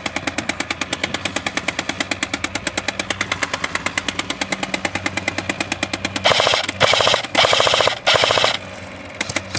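Airsoft guns firing on full auto: a steady, rapid clatter of about nine shots a second, then three louder bursts of fire from about six seconds in.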